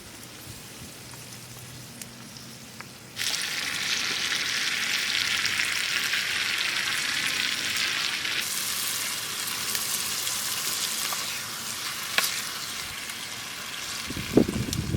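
Food frying in a pan, sizzling: the sizzle turns suddenly loud about three seconds in and eases somewhat later on. A sharp click near the end and a few low thumps at the close.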